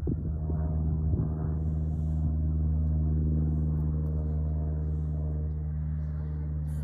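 A steady low engine drone with a constant pitch, swelling slightly about three seconds in and then easing off.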